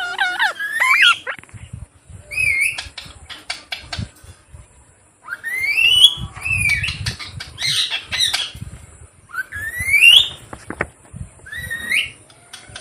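Pet parrot squawking: a string of loud, upward-gliding screeches, several followed by a quick run of clicking chatter.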